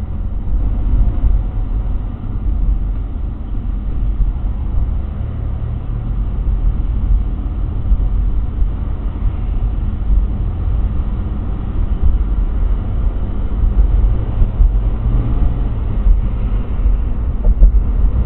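Steady low rumble of a car's engine and tyres heard from inside the moving car's cabin in city traffic, growing a little louder in the second half as the car speeds up.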